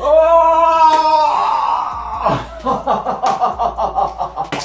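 A loud held cry lasting about a second, then a man's rapid, rhythmic maniacal laughter, ending in a sharp click.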